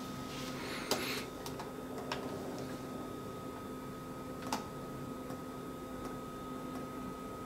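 A few soft clicks of the control-panel buttons on a DeLonghi ECAM22.360.S coffee machine being pressed to scroll through its menu, spaced a second or more apart, over a steady faint hum.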